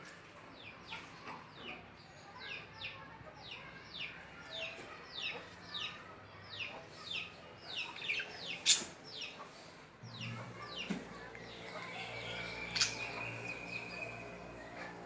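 Lovebirds calling in a cage: a long run of short, falling chirps, about two a second, with a couple of sharp clicks. In the last few seconds the chirps stop and a steady high tone and a low hum are heard.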